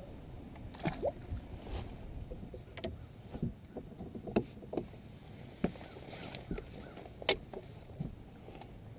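Scattered knocks and clicks of an angler moving about a bass boat's deck and handling rod and gear, over a low steady wash of water against the hull; the sharpest click comes about seven seconds in.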